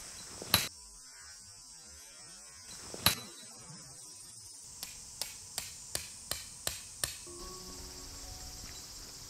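Two loud sharp knocks, about half a second and three seconds in, then a quick run of seven sharp taps at just under three a second. A steady high insect drone of summer cicadas or crickets runs underneath.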